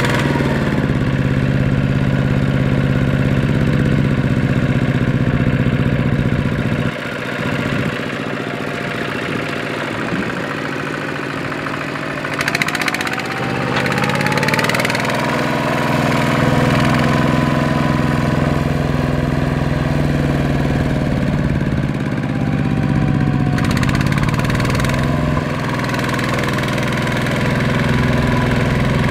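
A two-wheel walking tractor's single-cylinder diesel engine chugging as it hauls a loaded trailer through deep mud. The engine note drops about seven seconds in and picks up again a few seconds later.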